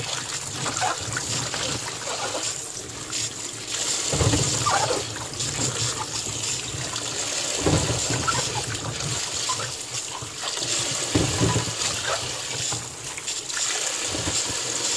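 Kitchen tap running steadily into a plastic basin of green plums while hands swish and rub the fruit in the water. Louder sloshing splashes come every few seconds, the last rinse of the maesil.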